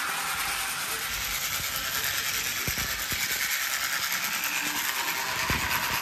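Toy train running on plastic track: a steady whirring rattle of its motor and wheels, with a few sharp clicks as it passes over the track joints and points.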